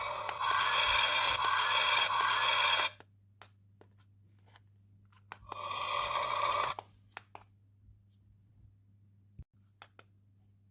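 An electronic toy's small speaker plays a buzzy electronic sound effect for about three seconds, then again briefly in the middle. A few light plastic clicks follow.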